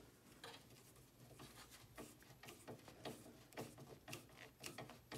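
Faint, irregular small clicks and scrapes of hand work fitting a power supply into a PC case, a few a second.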